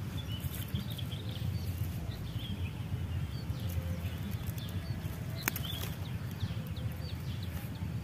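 Small birds chirping repeatedly in short, quick notes over a low steady rumble, with one sharp click about five and a half seconds in.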